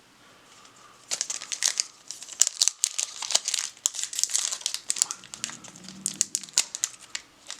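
Plastic wrapper of a trading card pack crinkling and crackling as it is handled and torn open, starting about a second in.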